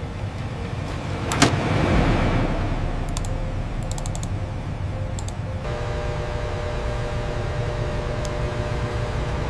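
Machinery sounds: a steady mechanical hum, a sharp clack about a second and a half in with a hiss of air after it, and a steadier tonal machine hum from about halfway through, with scattered light ticks.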